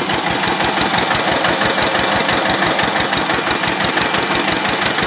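Eicher Good Earth diesel tractor engine running steadily while it drives an irrigation water pump, with an even, rapid beat of firing pulses.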